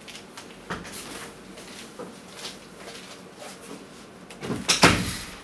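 Scattered light knocks and clicks of handling, with one louder knock just before the end.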